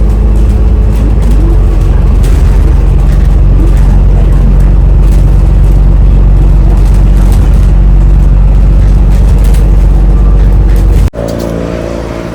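Loud, steady low rumble of a moving bus heard from inside, with the engine's drone running under it; it cuts off abruptly about eleven seconds in to a much quieter sound.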